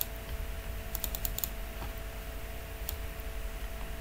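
Computer keyboard and mouse clicks: a single click at the start, a quick run of about five keystrokes about a second in, and another click near three seconds, over a faint steady electrical hum.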